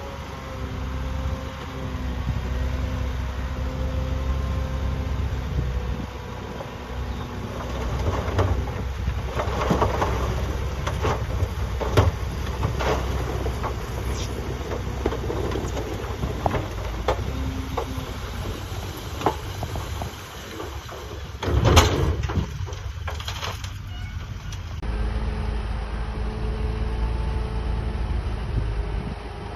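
Heavy diesel earthmoving machine, most likely a bulldozer, running steadily with a low rumble and an even engine hum. Through the middle come repeated metallic clanks and knocks, with one loud bang about two-thirds of the way through.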